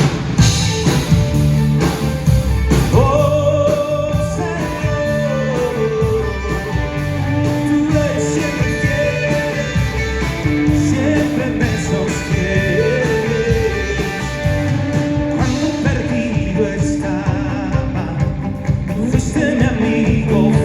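Worship band playing the instrumental intro of a song, with a steady beat and bass under a gliding lead melody that comes in about three seconds in.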